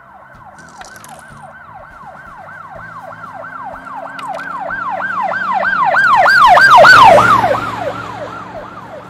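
Police car siren in a fast rise-and-fall yelp, growing louder as it approaches and loudest about seven seconds in. Its pitch then drops as it passes, and it fades away.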